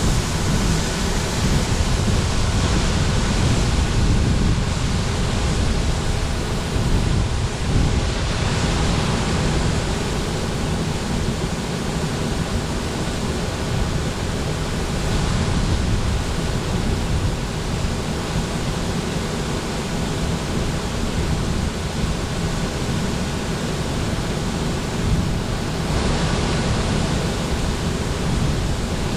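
Case IH 2388 Axial-Flow combine running while harvesting soybeans: a steady rushing noise of engine and threshing machinery, with a faint steady whine.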